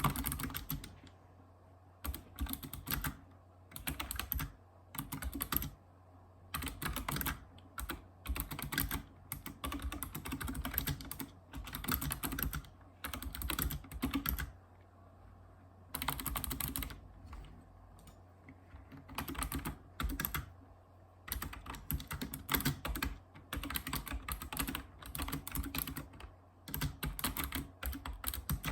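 Typing on a Razer Ornata Chroma keyboard: its mecha-membrane keys click in bursts of rapid keystrokes separated by short pauses.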